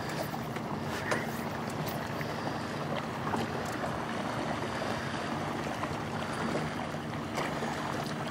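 Open-water boat ambience: steady wind and water against the hull, under a low steady hum, with a few light clicks.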